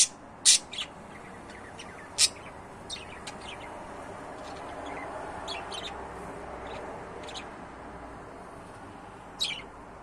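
Budgerigar giving short, sharp chirps: a few loud ones in the first two and a half seconds and one near the end, with fainter chirps in between, over faint steady background noise.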